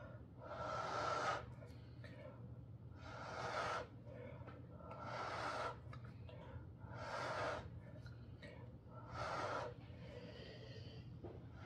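A person blowing hard through the mouth in about five long puffs, roughly one every two seconds, pushing wet acrylic paint outward across a round panel to open up a bloom.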